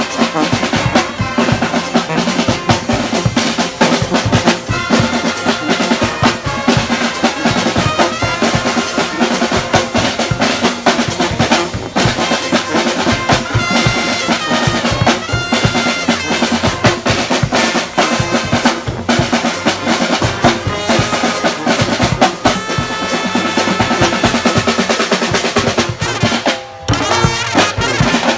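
Street brass band playing live, snare and bass drums driving a busy beat under brass horns, with a short break in the sound near the end.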